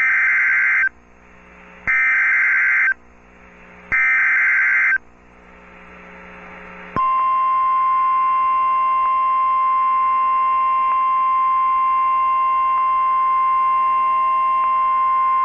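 Emergency Alert System SAME header: three one-second bursts of harsh digital data screech, about a second apart. About two seconds after the last burst, the steady single-pitch 1050 Hz NOAA Weather Radio warning alarm tone comes on, announcing a Special Marine Warning broadcast.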